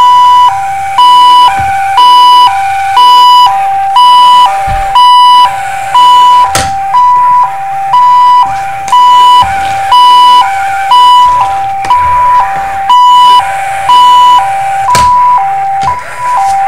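Parallax Scribbler 2 robot's small speaker playing its electronic two-tone ambulance siren in the robot's ambulance-behaviour demo mode: a higher and a lower beep alternating, each about half a second long. Two sharp knocks come through, about six and a half and fifteen seconds in.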